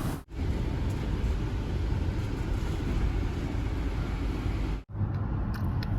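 Steady low rumble of a car, with two abrupt cuts where the footage is edited and a few light clicks near the end.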